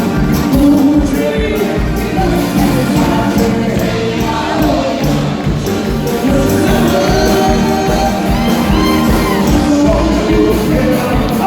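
A live band playing a song, with a singer's voice over a steady beat.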